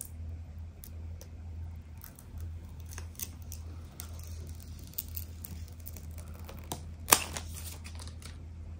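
Fingernails clicking and scratching on a clear plastic MagSafe phone case as it is handled, in scattered small clicks with one sharp, louder click a little after seven seconds in. A low steady hum runs underneath.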